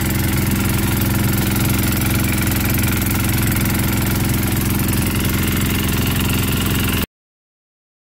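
A steady, loud machine-like hum with hiss, like a running motor. It cuts off abruptly about seven seconds in, leaving dead silence.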